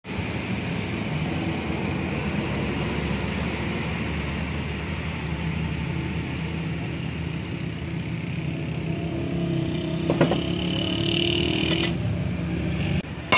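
A steady engine-like motor hum that stops suddenly near the end. About ten seconds in, a sharp knock and a higher held tone come over it for a couple of seconds.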